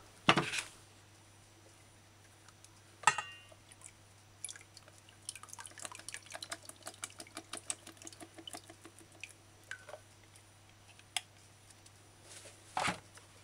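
Liquid from an opened can of kidney beans draining into a stainless steel bowl: a run of small irregular drips and splats. A single sharp clink comes about three seconds in.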